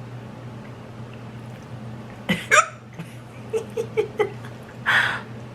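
A woman hiccuping twice in quick succession, brought on by eating very spicy noodles. A quick run of small throaty sounds and a short breathy rush follow near the end.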